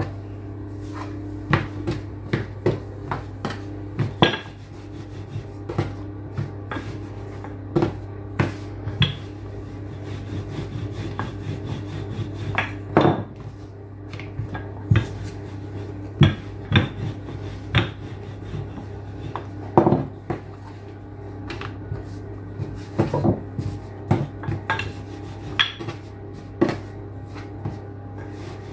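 Irregular knocks, taps and rubbing of dough being handled, stacked and rolled out with a wooden rolling pin on a countertop, over a steady low hum.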